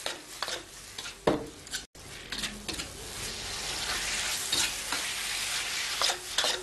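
Lamb slices and scrambled egg sizzling in a hot wok while a metal ladle stirs and scrapes them, with short scrapes and knocks of metal on the wok every second or so over the steady sizzle.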